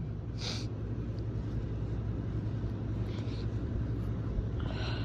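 A person sniffing three times, each a short breathy sniff, after sneezing and blowing their nose, over a steady low hum.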